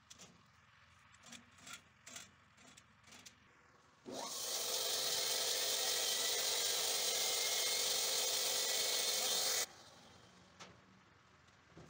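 Band sawmill's electric motor and band wheels starting up with a short rising whine, then running with a loud, steady hiss for about five seconds before cutting off sharply. Before it, a few light clicks come from the carriage handwheel being turned.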